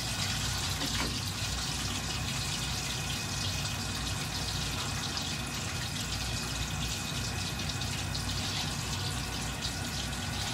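A slab of pork belly deep-frying in a wok of hot oil, sizzling steadily with fine crackling.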